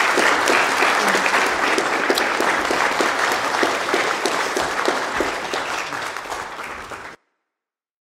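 Congregation applauding with dense clapping that slowly fades and cuts off suddenly near the end.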